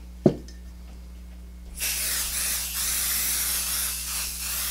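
A short knock just after the start, then an aerosol can of spray adhesive hissing in one continuous spray from about two seconds in, misting glue onto quilt batting to baste the fabric to it.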